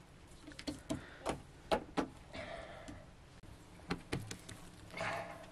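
Wood fire crackling inside a clay tandoor, with irregular sharp pops and snaps, while naan dough is patted onto the oven's inner wall with a couple of soft, brief rustles.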